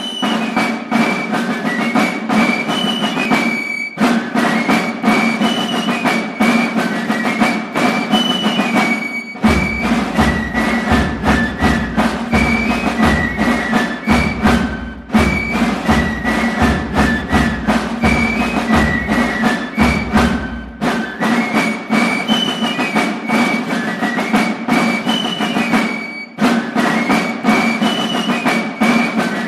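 Fife-and-drum music: a high fife melody over fast, dense drumming, with short pauses between phrases. A deep bass drum joins about ten seconds in and drops out about twenty-one seconds in.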